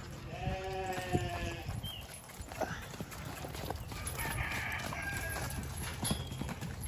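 A farm animal calls: one held, steady call of about a second near the start, then a second, rougher call a little past the middle, with a few short knocks and a low rumble underneath.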